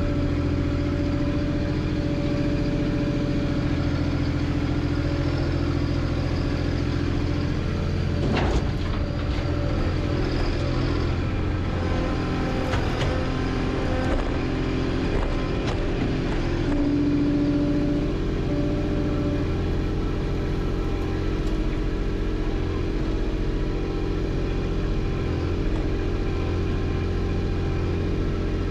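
Compact tractor engine running steadily while it drives with a load of brush in its front loader bucket. There is one sharp knock about eight and a half seconds in.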